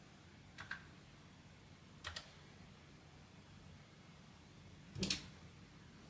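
Three faint button clicks, each a quick double click of a press and release, the third about five seconds in the loudest, over a low steady hum.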